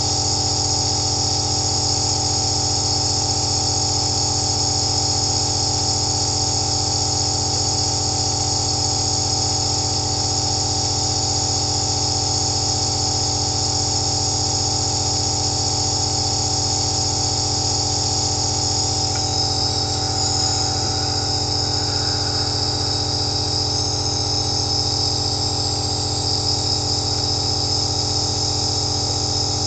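Compressor nebulizer running steadily: a low motor hum under a high hiss of air and medicine mist through the mask. The hiss shifts in character about two-thirds of the way through.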